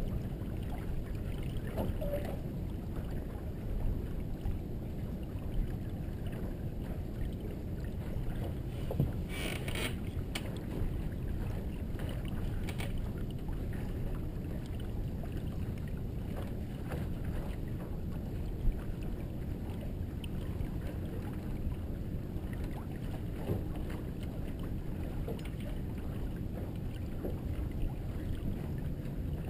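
Merit 25 sailboat under sail: a steady low rush of wind and water along the hull, with a brief hiss about nine seconds in and a couple of short knocks.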